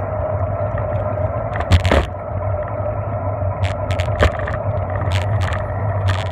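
Steady rumble and hum of a bicycle rolling on pavement, picked up from the moving bike, with scattered rattling clicks. A sharper knock comes about two seconds in and another a little past four seconds.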